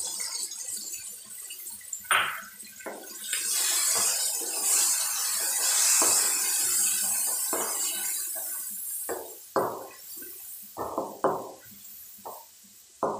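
Yogurt sizzling in the hot oil and chicken of a karahi as it is poured in, with a hiss that builds a few seconds in and then fades. In the second half a wooden spatula stirs it in, giving several short scrapes and knocks against the pan.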